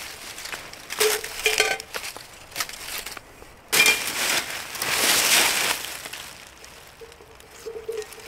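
Crunching and rustling handling noises, with a cluster of sharp clicks about a second in and a longer, louder rustle from about four to six seconds in.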